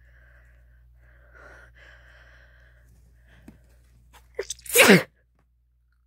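A woman's wet sneeze: soft breathy build-up breaths and a few quick catches, then one loud sneeze about four and a half seconds in that falls in pitch and cuts off sharply.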